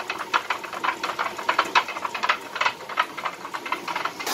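Traditional water-powered stone grain mill running: its wooden feed chute under the hopper clatters against the turning millstone in a quick, uneven series of knocks, several a second, shaking grain into the stone's eye.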